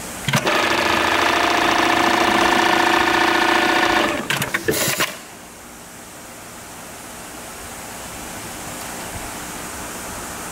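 Dematron DM-9820 electronic keyhole buttonhole machine sewing a keyhole buttonhole: a steady running sound for about three and a half seconds, then a few sharp clacks as the sewing stops.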